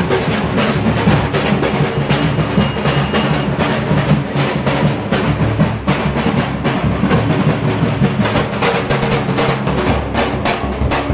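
Procession drums, a large bass drum among them, beaten in a fast, steady rhythm.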